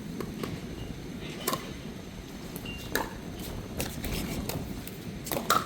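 Pickleball rally: sharp pops of paddles hitting the ball, spaced a second or more apart at first and coming quicker toward the end, where a close pair of hits is the loudest.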